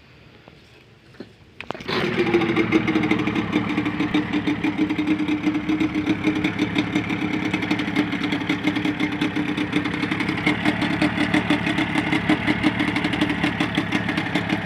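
An engine starts up about two seconds in and settles into a steady, fast-pulsing idle while it is being warmed up.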